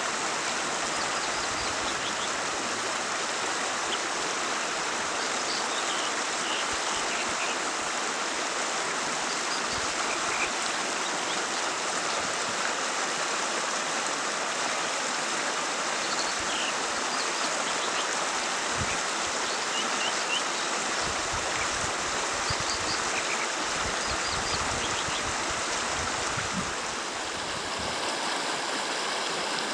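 Fast-flowing stream rushing steadily over rocks.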